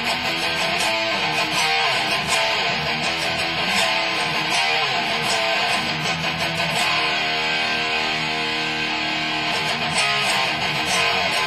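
Electric guitar played through a Peavey amplifier head and speaker cabinet: strummed chords and riff figures, with one chord left to ring from about seven to nine and a half seconds in before the playing picks up again.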